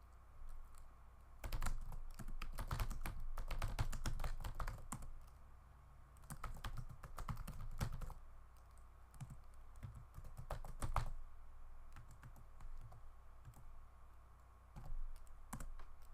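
Typing on a computer keyboard: a long run of rapid keystrokes starting about a second and a half in, a second run a little later, then scattered single key presses.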